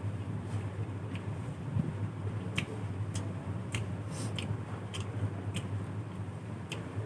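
Person chewing a mouthful of puffed rice and chicken curry, with short wet mouth clicks and smacks roughly every half second, over a steady low hum.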